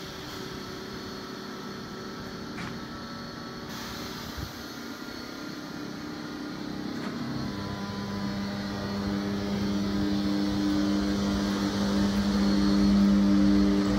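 Czech Railways class 362 electric locomotive starting off with a passenger train: a steady hum of its traction equipment and cooling fans. About halfway in, two steady low tones come in and grow louder as the locomotive rolls past.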